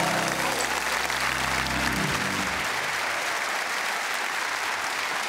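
Studio audience applauding. For the first two and a half seconds a held low chord of music plays underneath, then stops.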